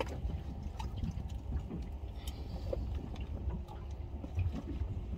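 Water sloshing and dripping in a bait tank as a small dip net scoops out a live catfish for bait, with small splashes over a steady low rumble.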